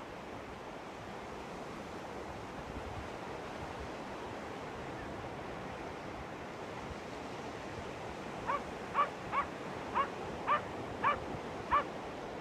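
Steady wash of surf and wind. About two-thirds of the way in, a dog barks seven times in quick succession, about two barks a second.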